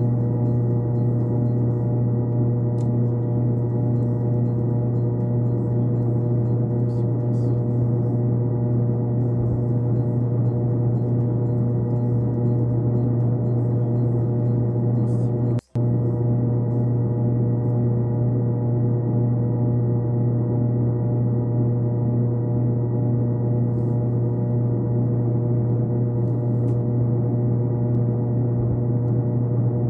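A steady, unchanging drone of several held tones at once, with a deep hum at its base, that cuts out for an instant about halfway through.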